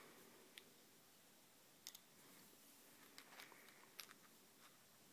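Near silence with a handful of faint, sharp clicks spread through it: small metal parts and a Torx driver being handled while a knife's lockbar stabilizer screw is fiddled with.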